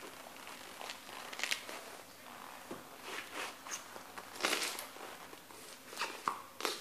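Crisp green stalks, celery by the look of them, crunching and squelching under the soles of Lowa leather hiking boots as they stamp and grind, with the paper underneath crinkling. A few separate crunches, the loudest about four and a half seconds in.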